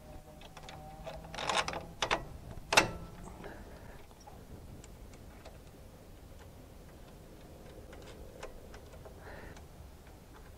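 Steel bolts and hardware clinking against a sawmill's steel blade-guide bracket as they are dropped in and threaded by hand: a few sharp metallic clicks in the first three seconds, the loudest near three seconds in, then light scattered ticks.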